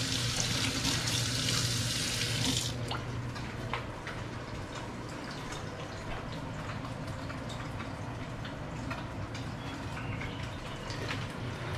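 Kitchen faucet running into a stainless steel sink while a knife is rinsed under it. The tap is shut off abruptly about three seconds in. After that come quieter handling sounds: a few light clicks over a low steady hum.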